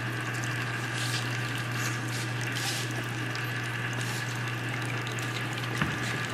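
Water running steadily through a sand stream table, over a constant low hum. A single short click comes a little before the end.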